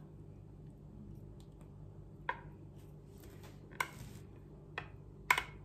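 A small metal spatula spreads and smooths thick chocolate pudding cream in a glass baking dish, giving a few light clicks as it touches the glass, about four in the second half, over a faint steady low hum.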